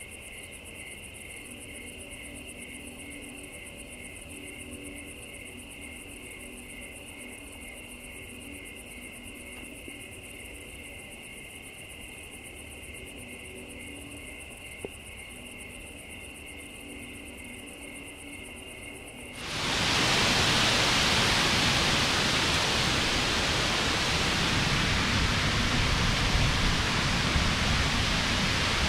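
Crickets chirring in a steady pulsing chorus. About two-thirds of the way through, a loud, steady rush of heavy storm rain starts suddenly and drowns them out.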